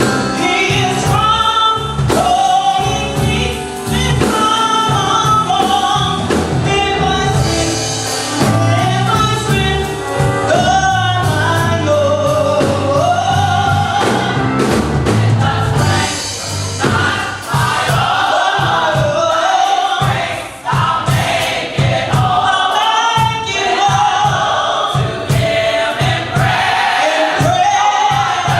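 A gospel vocal group singing in harmony, with a driving band accompaniment.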